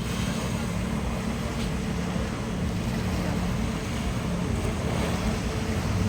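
A boat's engine running steadily under a rush of wind and water.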